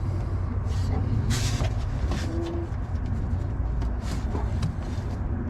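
Hands working the plastic electrical connector off a 2011 Honda Pilot's headlight bulb: a few short clicks and scrapes over a steady low rumble.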